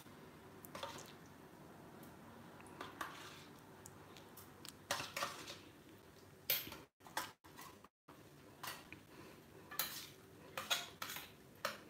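Metal spoon clinking and scraping against a small stainless steel bowl as thick curd is spooned onto a chopped onion and tomato salad. The clinks are faint and scattered, a few seconds apart.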